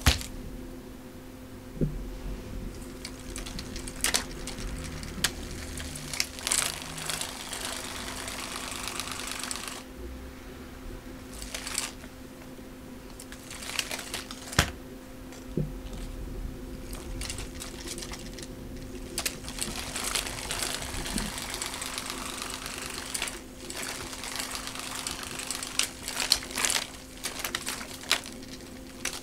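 Light plastic clicks, knocks and rattles from a cat toy being batted and knocked over on a carpet, scattered irregularly, over a steady electric hum.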